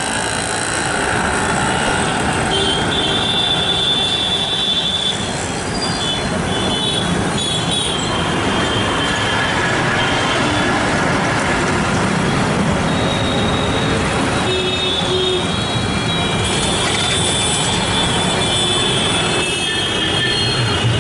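Busy street traffic of auto-rickshaws and motorcycles running, a steady din with high thin tones coming and going a few seconds in and again near the end.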